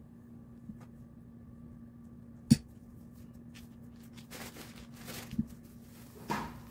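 A tablespoon spreading filling, with one sharp clink about two and a half seconds in and light scraping and rustling over the last couple of seconds, over a steady low hum.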